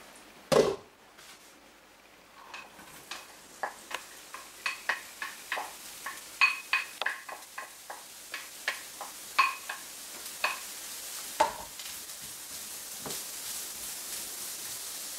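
Diced onions sizzling in hot coconut oil in a frying pan, the sizzle growing steadily louder. Early on there is one loud knock, then a run of sharp clinks and taps as the onions are tipped from a glass bowl into the pan.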